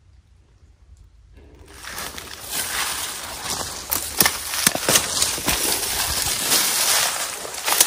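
Footsteps crunching and rustling through dry leaf litter. They start about a second and a half in and go on at a walking pace.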